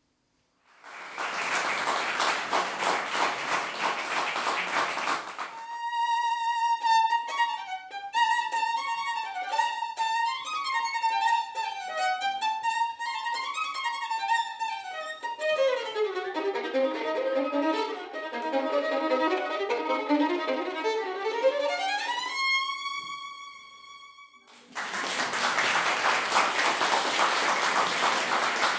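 Unaccompanied solo violin: a bowed melody, then fast runs sweeping down and back up, ending on a rising slide to a high held note. It is framed by audience applause, once in the first few seconds and again after the violin stops near the end.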